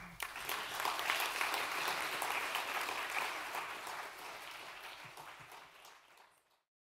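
Audience applauding, at its fullest in the first few seconds, then thinning out and fading until it cuts off near the end.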